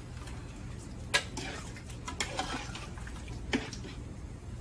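A spoon stirring Otaheite gooseberries in a cooking pot, knocking against the pot three times, about a second apart.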